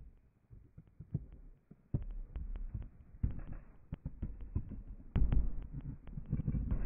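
Hockey skate blades striking and pushing off the ice in a quick start: a run of low thuds and sharp clicks, getting busier from about two seconds in and loudest a little after five seconds.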